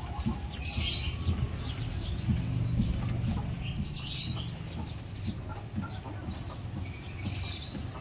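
A flock of sparrows chirping in three short chattering bursts, over a steady low rumble.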